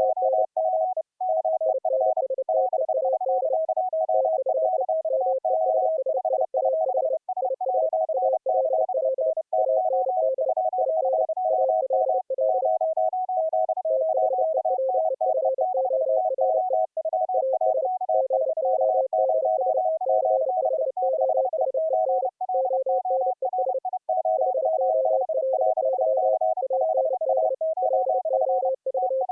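Several Morse code (CW) signals sent at the same time, each a keyed audio tone at its own pitch: three tones at slightly different pitches beeping in overlapping dots and dashes. This is the operators' CW audio mixed together and relayed over an audio-over-IP link, showing full-duplex sending.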